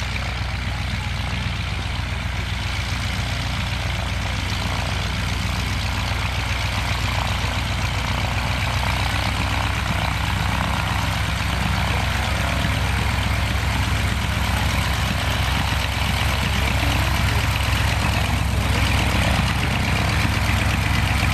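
Propeller piston engine of a Fieseler Storch-type high-wing plane running at low taxiing power: a steady low drone that grows gradually louder as the plane taxis closer.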